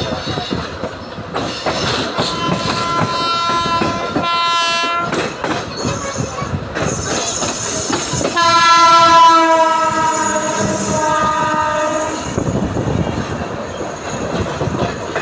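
Railway locomotive horn sounding two blasts, the second longer, heard from inside a passenger coach over the steady clatter of the wheels on the rails.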